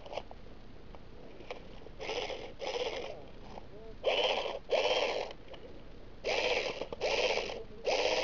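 Airsoft high-capacity magazine being wound by its thumbwheel: seven short ratcheting bursts, mostly in quick pairs, starting about two seconds in.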